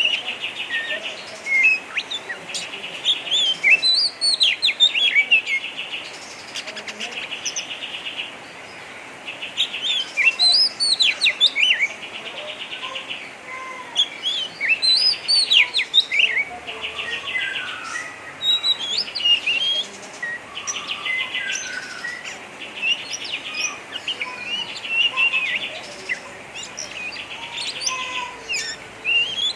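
Oriental magpie-robin singing in the harsh 'ngeriwik' style: rasping, buzzy trills about a second long, repeated over and over between sharp, sweeping whistled notes.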